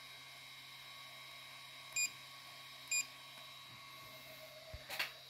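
Creality CR-6 SE 3D printer's control buzzer giving two short beeps about a second apart, over a steady faint hum. A short knock follows near the end.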